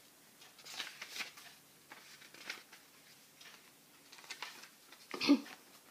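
Printed paper pages rustling and crackling as they are leafed through, in scattered short strokes. A louder short sound comes about five seconds in.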